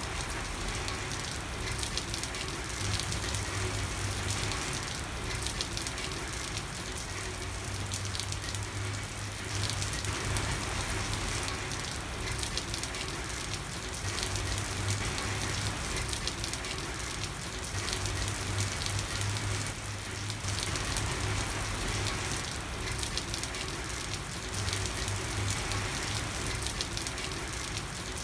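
Steady rain falling, a dense even patter of many drops, with a low hum underneath that comes and goes.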